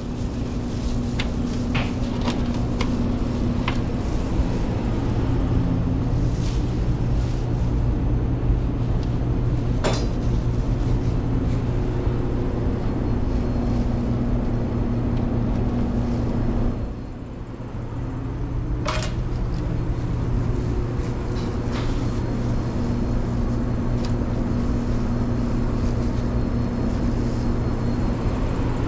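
Steady mechanical hum of commercial kitchen equipment, with a few light knocks and clatter from handling trays and utensils. The hum dips briefly a little past halfway.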